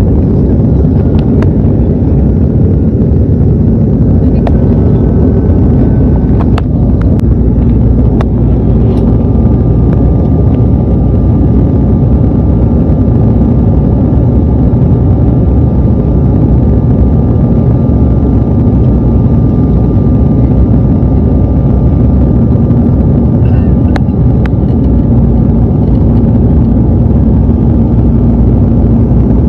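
Jet airliner cabin noise in flight: the steady, deep rush of the engines and the airflow over the fuselage, with a few faint clicks.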